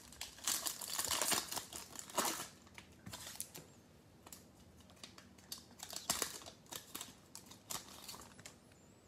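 Foil wrapper of a 2020 Panini Select football card pack crinkling in irregular bursts as it is handled and torn open.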